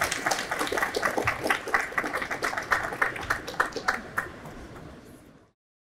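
Audience applauding, a dense patter of claps that fades out and cuts off near the end.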